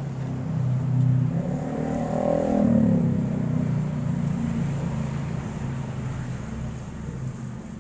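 A motor vehicle engine passing close by: its hum swells to its loudest about two to three seconds in, then slowly fades away.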